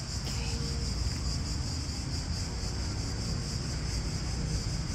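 Crickets chirping in a steady, high, finely pulsing trill over a low rumble.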